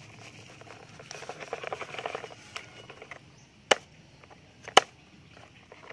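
Gritty crackling of wet soil sliding off a plastic toy dump truck's tipped bed. Then come two sharp plastic clacks about a second apart as the bed is handled back down.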